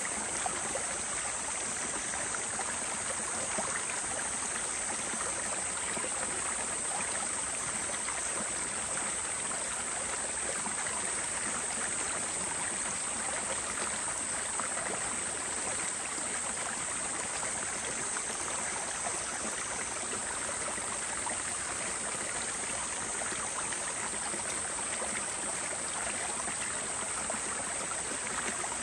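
Steady rushing of a flowing stream, with a fine, even splashing hiss that holds constant throughout.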